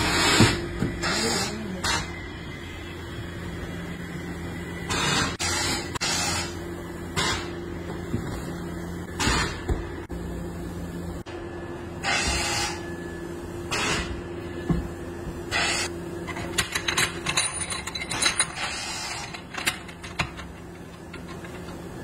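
Steady hum of tyre-retreading workshop machinery, broken by short hissing bursts every second or few and a run of quick metal clicks and clinks near the end as the steel mould parts are handled.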